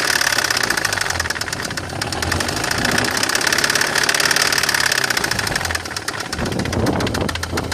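BMW E46 318i's M43TU four-cylinder engine running with a rapid, steady, rhythmic knock, which the owner wonders could be down to the timing chain tensioner.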